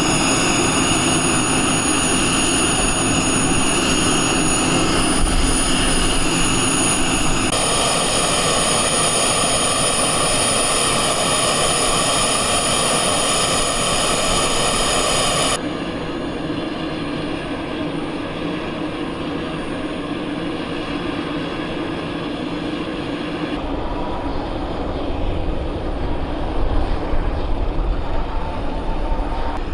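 Aircraft turbine engines running with a steady whine and several high tones. The sound changes abruptly three times, about every eight seconds. It is brightest in the middle, then duller, with a low rumble growing near the end.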